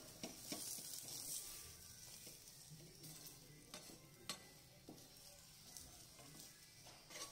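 Aloo paratha sizzling on a hot iron tawa while a steel ladle is worked over it. The sizzle is strongest in the first couple of seconds, and the ladle clicks and scrapes against the griddle a few times, sharply around the middle and near the end.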